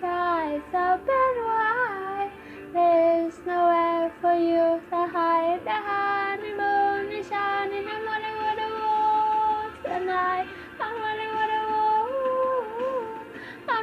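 A young girl singing alone, holding long notes with vibrato and sliding between pitches.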